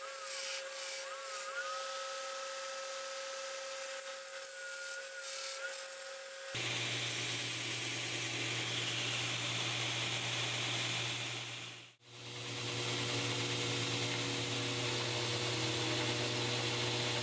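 2x72 belt grinder running a coarse 36-grit belt while a 5160 spring-steel knife blank is ground against it to refine the profile: a steady motor hum under the hiss of steel on the abrasive belt. The sound changes abruptly about six and a half seconds in and cuts out for an instant near twelve seconds.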